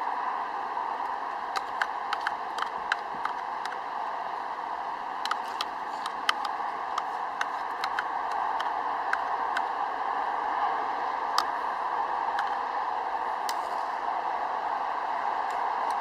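Steady hiss of heavy rain, with scattered sharp crackles and pops, clustered in the first half and sparser later.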